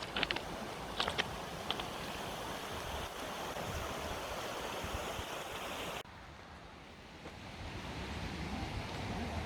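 Steady outdoor rushing noise, with a few light clicks in the first two seconds. It drops off abruptly about six seconds in, then slowly builds back.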